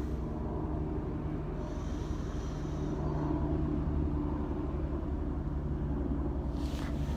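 Steady low outdoor rumble, with the faint steady hum of a tolled church bell ringing on underneath, and a short hiss near the end.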